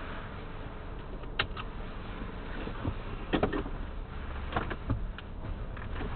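A person clambering between the front seats into the back of a car, making a handful of bumps and knocks against the seats, the loudest a cluster a little past the middle, over the steady low hum of the car's cabin.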